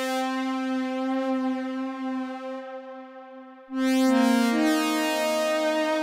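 Arturia PolyBrute analog polysynth playing a sound from the GEOSynths preset library: a held note that slowly fades, then a brighter chord struck about two-thirds of the way through, with another note joining a moment later.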